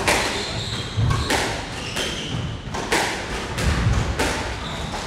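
Squash rally: the ball is struck by the rackets and smacks off the walls in a string of sharp hits, about one every half second to second, with brief shoe squeaks on the wooden court floor.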